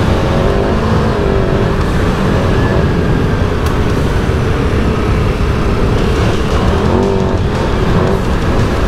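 Big twin-cylinder adventure motorcycle riding off-road, its engine running steadily under a dense rumble of wind and road noise, with the engine note rising briefly about half a second in and again about seven seconds in.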